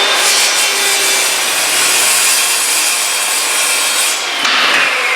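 Corded circular saw cutting through plywood, its motor whining steadily under the cut. About four seconds in, the cutting noise stops and the motor winds down with a falling whine.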